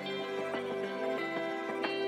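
Soft instrumental background music, sustained notes with new notes coming in.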